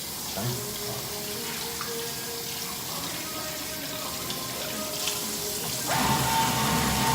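Water running from a tap into a sink in a steady rush that starts abruptly. It grows louder and fuller about six seconds in.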